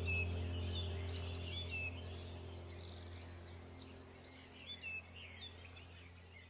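Small birds chirping and whistling over a low steady hum, the whole track fading out gradually.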